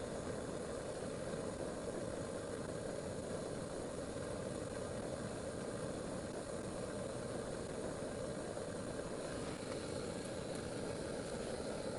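A steady, unchanging low rumble like a running engine, with no breaks or sudden sounds.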